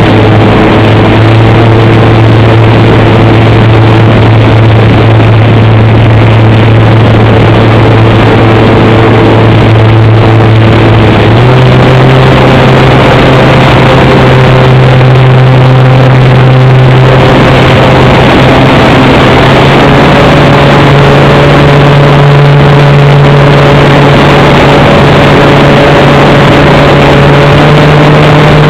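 Electric motor and propeller of an EasyGlider Pro RC glider running, heard loud through the onboard camera with a rush of air over it. The motor hum steps up in pitch about a third of the way in, and again a little later.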